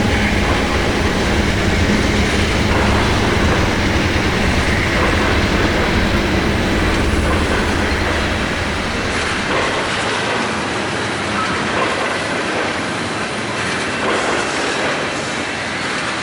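A railroad train rolling along the track, with a steady rush of wheel and rail noise and light clacking. The deep rumble underneath drops away about nine seconds in.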